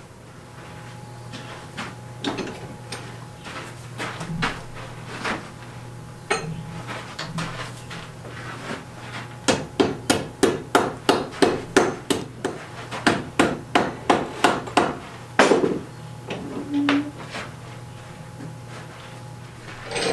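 A wooden mallet striking a hot iron rod clamped in a blacksmith's leg vise. A few scattered taps come first, then a quick, even run of blows at about three a second for five or six seconds, ending with one harder blow.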